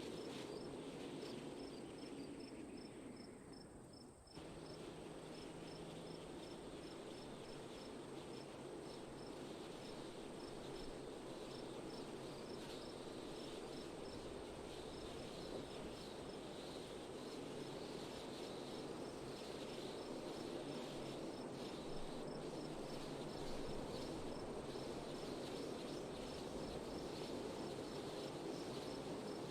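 Steady wind with crickets chirping in an even, rapid run of high pulses. A little over four seconds in, the sound fades down and then cuts abruptly back in.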